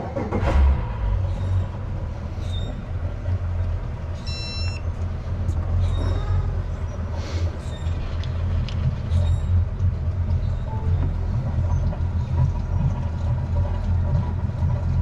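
An engine starts and then runs steadily with a low rumble. A brief high-pitched beep sounds about four seconds in, along with a few scattered clicks.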